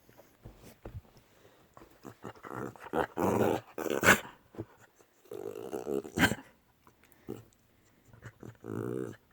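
A dog having excitement-triggered coughing spells: three harsh bouts, the loudest about four seconds in. The owner notes this coughing is different from his usual excited sneezing.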